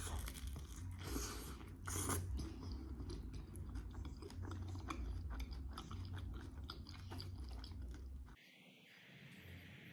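A person biting and chewing a homemade burrito, a dense run of small clicks, stopping abruptly about eight seconds in.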